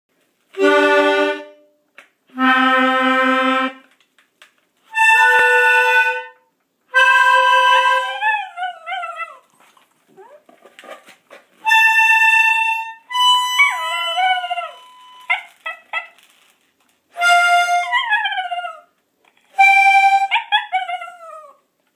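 Accordion sounding a series of short held chords, about two seconds apart. From about eight seconds in, a small dog howls along after several of them with wavering, mostly falling cries, reacting to the instrument.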